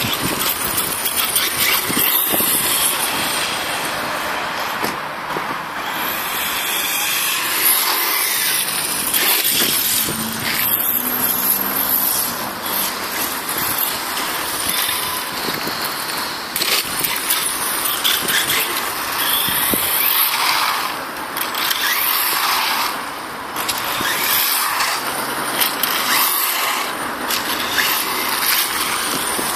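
Battery-electric RC monster truck driving over grass and asphalt, its motor and tyres running with a noisy sound that rises and falls with the throttle.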